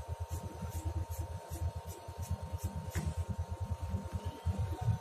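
Scissors cutting through cotton shirt fabric: a quick run of short snips, about three a second, stopping about three and a half seconds in.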